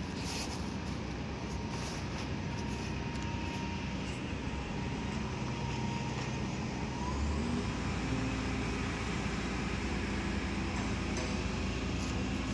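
Steady engine or machinery hum that gets a little fuller about seven seconds in, with a few light clinks of hand tools on metal parts.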